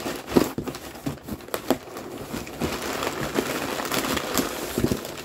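Hands rummaging inside a cardboard shipping box, crinkling and rustling the packing material, with scattered sharp knocks and scrapes against the cardboard.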